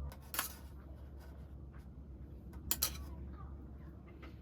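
Light clinks of tableware: one sharp clink about half a second in and two more close together near the three-second mark, over faint background noise.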